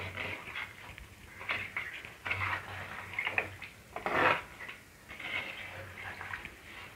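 Wooden spatula stirring chunks of goat head meat through a watery curry in a clay pot: an irregular run of wet scraping strokes, the loudest a little after four seconds in.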